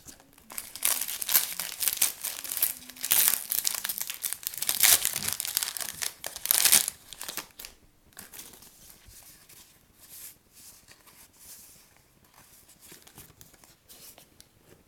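A trading card pack's wrapper being torn open and crinkled by hand. It is busy and fairly loud for about the first seven seconds, then drops to faint rustling of wrapper and cards.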